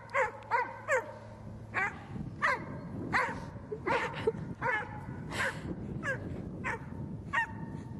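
Retriever dog giving a run of short, high play barks and yelps, roughly two a second, some with a falling pitch.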